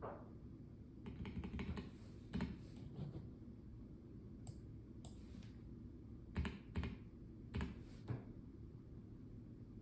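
Typing on a Melgeek Mojo84 mechanical keyboard with a plastic case: a short flurry of keystrokes, then single key presses with pauses between them, stopping about eight seconds in.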